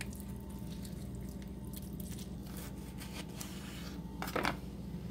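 A lime being cut with a kitchen knife on a wooden cutting board and picked up: scattered light taps and scrapes, with one short louder sound about four seconds in, over a steady low hum.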